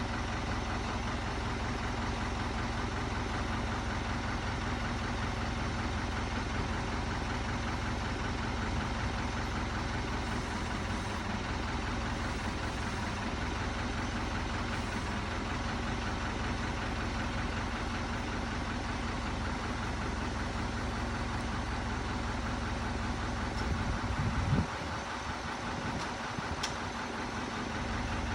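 Backhoe's diesel engine running steadily at low revs. Near the end it rises briefly, then the deep rumble drops away.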